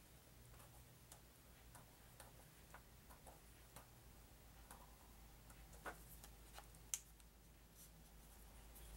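Near silence with faint, scattered small clicks and crinkles, two a little louder about six and seven seconds in: plastic shrink wrap on a pack of game cards being picked at and torn.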